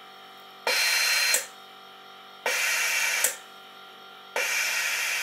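Witschi ALC 2000 watch pressure tester venting its chamber in pulses: three sharp bursts of air hiss, each under a second long and about two seconds apart, as the pressure is let down after a 5-bar test.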